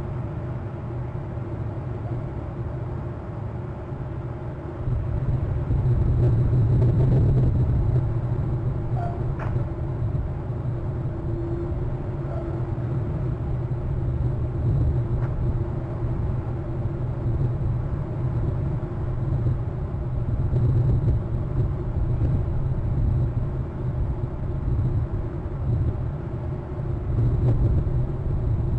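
Steady low rumble throughout, growing louder about five seconds in.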